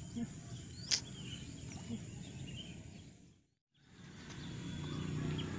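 Outdoor lakeside ambience: a steady low background noise with scattered small bird chirps, and one short sharp sound about a second in. The sound cuts out completely for a moment past halfway, then returns.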